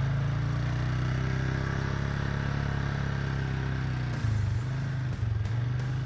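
ATV engine running steadily as it drives along a sandy dirt track. Its note dips slightly about four seconds in, followed by a couple of jolts.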